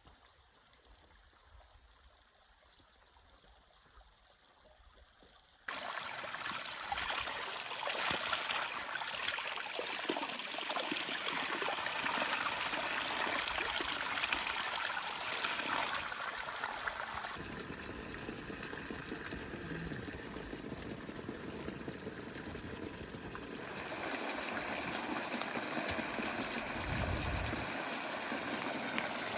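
Faint, near-silent ambience for the first few seconds, then water from a clear mountain spring running and trickling, cutting in suddenly. Its level and texture shift twice.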